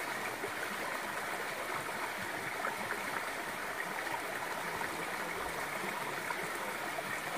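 Shallow rocky stream flowing steadily over stones.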